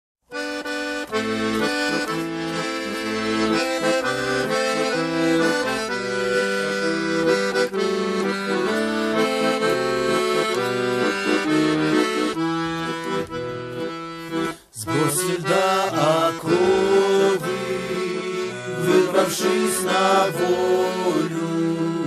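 Piano accordion playing a slow introduction in held chords; it breaks off briefly about two-thirds of the way through, then men's voices start singing over the accordion.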